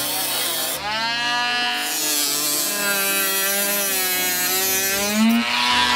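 Dremel rotary tool with a cutting disc running as it trims model railway flexi track to length. Its whine sags in pitch in the middle as the disc bites, then rises again near the end.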